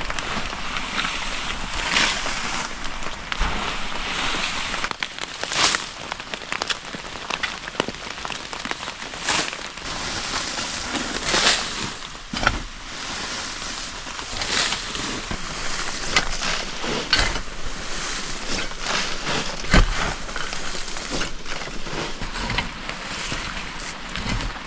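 Steady rain falling in the forest, with irregular louder rustles and snaps throughout.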